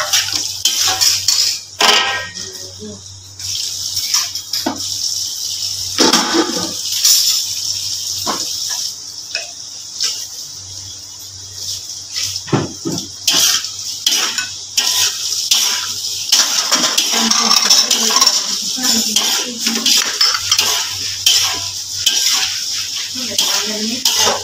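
Slotted metal spatula scraping and knocking irregularly against a large metal wok while stir-frying snow peas and shrimp. A steady hiss of frying runs underneath, and there are a few sharper clanks.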